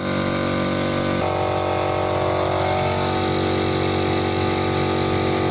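Car engine idling steadily during an engine carbon-cleaning treatment; its tone shifts slightly about a second in.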